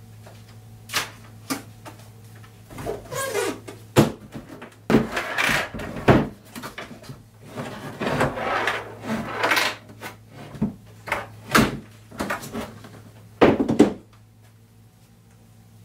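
A plastic Sortimo tool case and its foam insert being handled on a wooden workbench. Irregular knocks, clacks and rustling scrapes, with the loudest clatter near the end.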